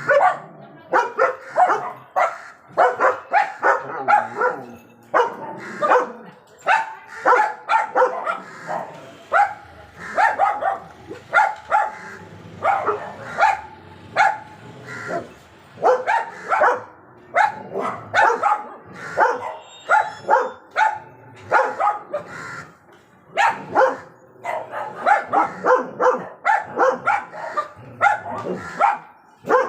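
German Shepherd dogs barking at a crow: a dense, almost continuous run of short loud barks, with brief lulls around a third of the way in and again past the middle.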